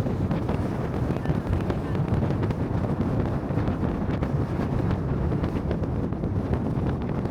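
Wind buffeting the microphone: a steady low rumble with no clear tones.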